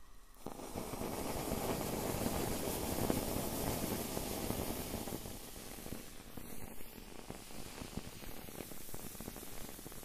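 Skewered marshmallows burning over a flame: a hiss that starts about half a second in, strongest in the first half and easing after that, with dense crackling and sizzling throughout.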